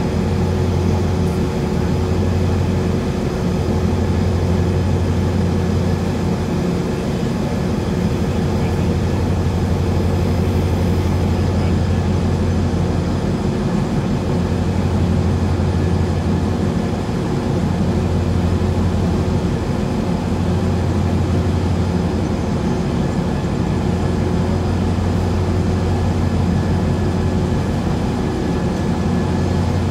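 Towboat's diesel engines running steadily while it waits in the lock chamber: a continuous low hum with a few steady tones above it.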